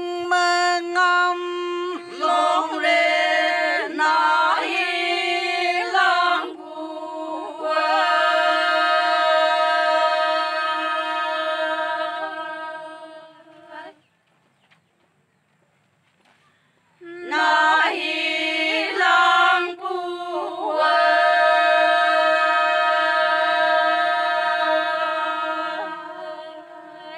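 A group of women singing a Konyak song unaccompanied and in unison. There are two sung phrases, each ending on a long held note, with a pause of about three seconds between them.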